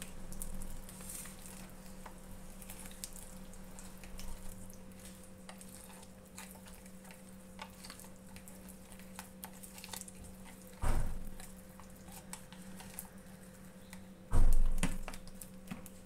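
A spoon stirring and scraping thick wet flour batter in a bowl, with many light clicks of the spoon against the bowl over a steady low hum. Two dull thumps, about eleven seconds in and near the end, are the loudest sounds.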